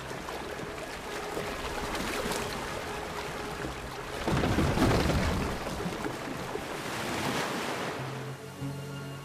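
Rough sea: surf and rushing waves, with a big wave crashing and surging loudest about four seconds in. Soft background music with steady held tones comes in near the end.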